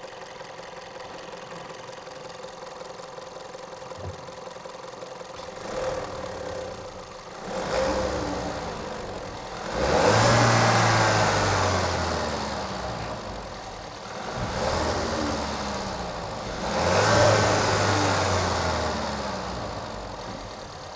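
VW Golf 1.2 TSI's turbocharged four-cylinder petrol engine idling, then revved: two short blips, then two longer, louder revs about 10 and 17 seconds in, the revs falling back slowly after each. It is being revved to chase a rattle from the turbo side, which is put down to the wastegate rather than the turbocharger itself.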